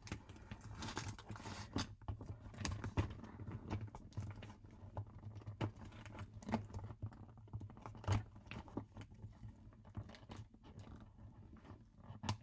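Purse and its contents being handled and shifted about: rustling with scattered small clicks and knocks, over a steady low hum.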